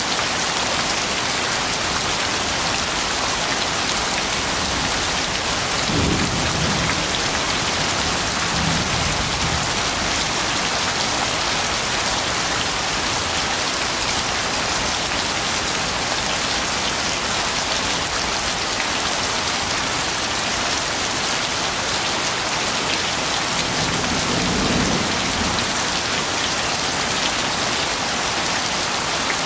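Steady heavy rain hissing down, with a few short low rumbles of thunder about six seconds in, again near nine seconds, and near the end.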